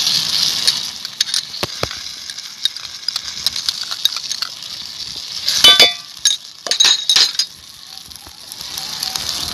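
Onion and tomato sizzling in a steel bowl over a wood fire. About halfway through there is a cluster of sharp ringing clinks as the metal ladle and spoon knock and scrape against the bowl and a glass dish.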